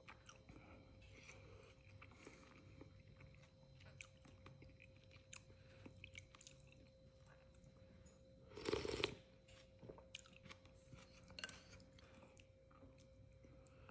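Faint close-up eating sounds from a bowl of chicken noodle soup: quiet chewing and small mouth clicks, with one louder noisy sound about nine seconds in.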